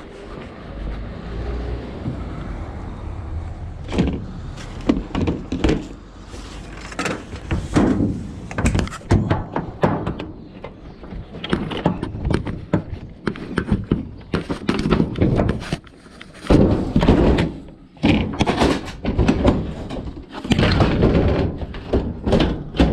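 Scrap being handled and loaded: a long run of thuds, knocks and clattering impacts.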